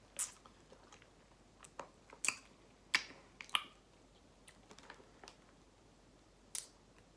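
Plastic snack bag of Takis rolled tortilla chips crinkling as it is handled and turned, giving about eight short, sharp crackles at irregular intervals.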